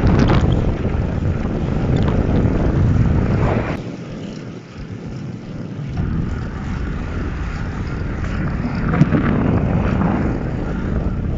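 Gusty wind buffeting the microphone of a camera on a moving bicycle. It eases a little about four seconds in, then builds again.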